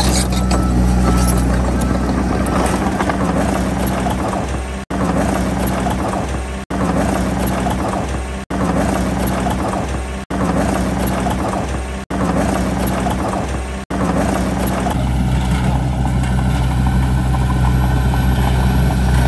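Small crawler bulldozer's diesel engine running steadily while the dozer pushes soil, with a noisy clatter over the engine note. The sound cuts out for an instant about every two seconds through the middle, six times, and near the end it settles into a steadier, smoother engine note.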